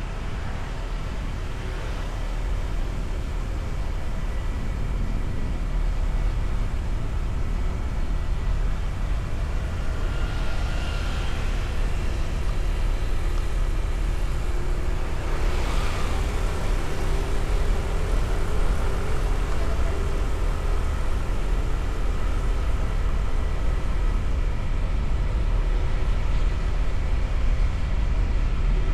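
Steady low rumble of a motor vehicle on the road, mixed with wind noise, with two brief swells about 10 and 16 seconds in, like vehicles passing.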